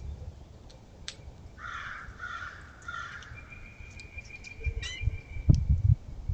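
Bird sounds at a feeder: three harsh, hoarse calls in a row, then a long steady high whistled note. Near the end come several loud low thumps.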